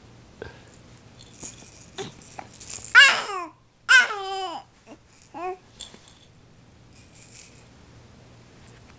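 Baby babbling in high-pitched squealing cries, two loud ones about three and four seconds in and a shorter one after, with soft rattling and clicking from baby toys being handled.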